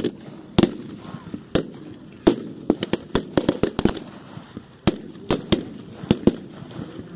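Irregular gunfire from blank-firing small arms: single sharp shots spaced unevenly, with a quick cluster of shots about three to four seconds in.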